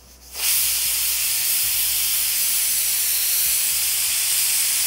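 Pressure cooker whistle: steam hisses out loudly from under the cooker's weighted vent valve, the sign that the cooker has reached full pressure. It starts suddenly about half a second in and holds steady.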